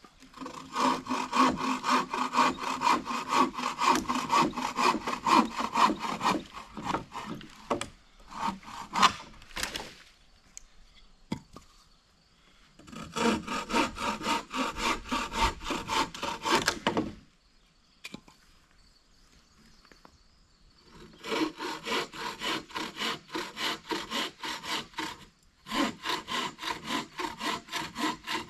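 Hand saw cutting through wood from a downed tree in quick back-and-forth strokes, about three to four a second. It saws in four runs of several seconds each, with short pauses between them.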